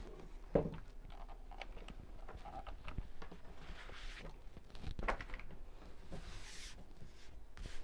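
Hands moving a folded fabric binding strip and a fabric mat about on a wooden tabletop: soft rustling and sliding of cloth with a few light taps, the sharpest about half a second in and another about five seconds in.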